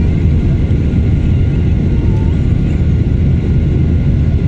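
Aircraft engines running at takeoff power: a loud, steady, deep rumble.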